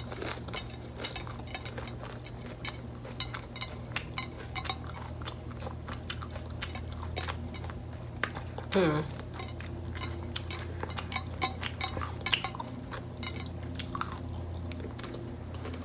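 Close-miked eating sounds: many small sharp clicks of crunching and chewing mixed with light clinks of cutlery and dishes, over a steady low hum. A brief pitched voice sound, like an "mm", about nine seconds in.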